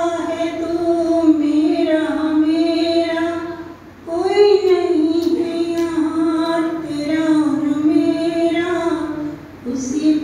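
A woman singing a Hindi devotional bhajan solo, holding long sustained notes in two phrases with a short breath break about four seconds in.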